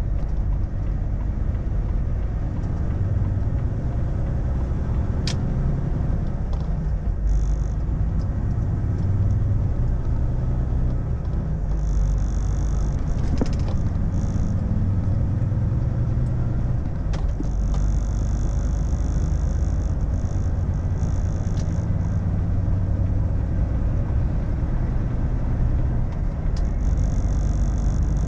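Volvo FH truck cruising on a highway, heard inside the cab: a steady low rumble of engine and road noise, with a higher hiss that comes and goes.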